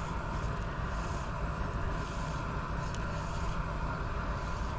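Steady outdoor noise: an even low rumble with a hiss above it and no clear events, apart from one faint tick about three seconds in.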